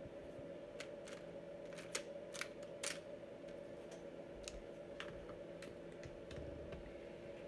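Scattered light clicks and taps of plastic makeup packaging being handled and dropped into a makeup bag, a dozen or so irregular clicks over a steady low hum.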